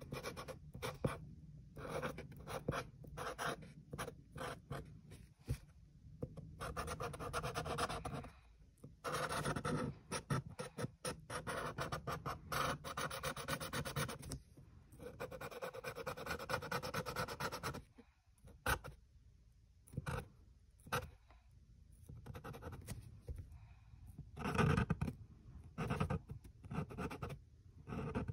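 Sharpie permanent marker scratching across printed paper in irregular strokes, some short and quick, with longer continuous strokes about nine and fifteen seconds in.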